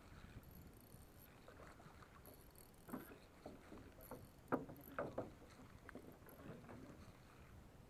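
Faint water lapping against a small boat, with a few short knocks and clicks around the middle, the sharpest about halfway through, as a spinning reel is handled.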